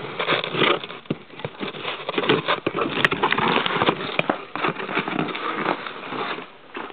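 A cardboard shipping box being handled and opened by hand: irregular scraping, rustling and tearing of cardboard and packing tape, with many sharp clicks.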